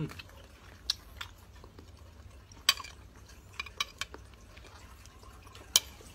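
Metal spoon clinking and scraping against a plate of dressed salad: a few scattered sharp clicks, the loudest about halfway through and another near the end.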